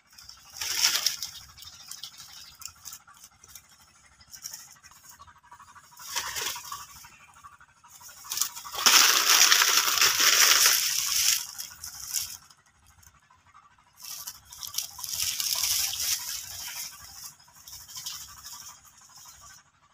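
Dry banana plant material rustling and scraping in four bursts of scratchy noise, the longest and loudest lasting about three seconds near the middle.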